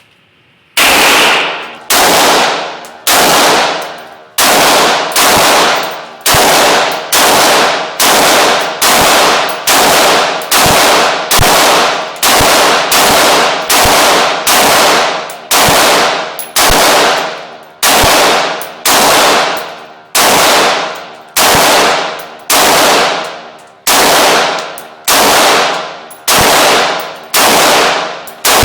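Bushmaster AR-15 rifle in .223 firing a long string of rapid shots, about one every three-quarters of a second, each crack trailing off in a ringing echo.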